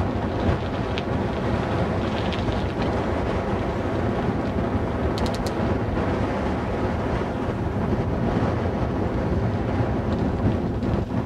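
Wind buffeting a helmet-mounted camera microphone while riding, a loud steady rumble with a few faint clicks about five seconds in.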